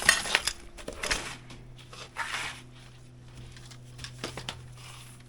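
Knocks and clatter, then scraping and shuffling, as a modular outdoor kitchen unit is pushed back into place, with a faint steady low hum underneath.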